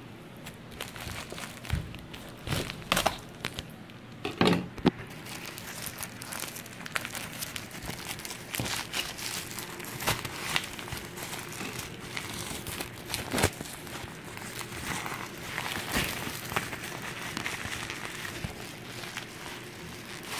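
Plastic packing wrap and bubble wrap being crumpled and torn open by hand, a steady crinkling rustle dotted with sharp crackles and rips, loudest about two to five seconds in.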